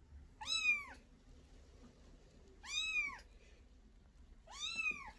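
A kitten meowing three times, about two seconds apart, each meow short and high, rising then falling in pitch.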